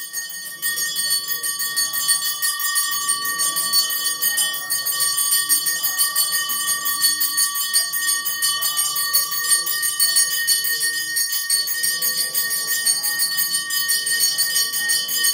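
Brass temple bell rung rapidly and without pause during the aarti, its ringing tones held steady throughout, with a murmur of voices underneath.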